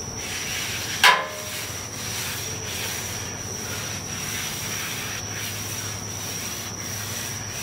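Paper towel held in metal tongs wiping oil over a hot steel griddle top in regular back-and-forth strokes. A single sharp metallic clink, the tongs knocking the griddle, rings out about a second in.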